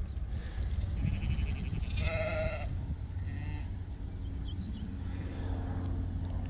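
Sheep bleating: a few short calls, the loudest about two seconds in, over a steady low rumble.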